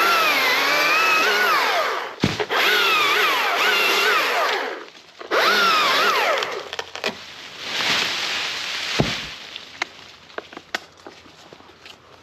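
Chainsaw cutting walnut limbs in several runs, its engine pitch dropping and climbing again as the chain bites into the wood and frees. The last few seconds are quieter, with scattered sharp clicks.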